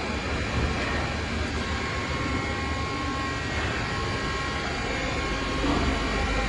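Hitachi Seiki CNC lathe running: a steady machine hum with a few faint whining tones.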